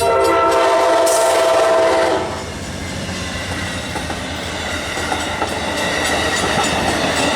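Train horn sounding a chord for about two seconds, then the train passing close by with a steady rumble and wheels clattering on the rails.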